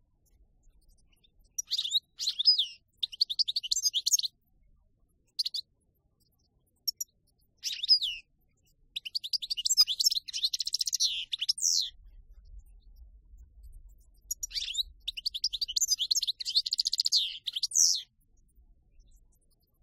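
Caged songbird singing wild-type song in outbursts of fast, high twittering. Short phrases come about 2 s in and near 4, 5.5 and 8 s, then longer runs of about two and a half seconds and three seconds, with pauses in between.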